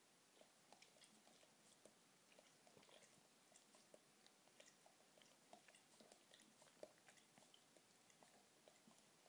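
Faint, irregular lip-smacking and chewing clicks of a Weimaraner working her mouth and tongue at a toffee stuck to her teeth.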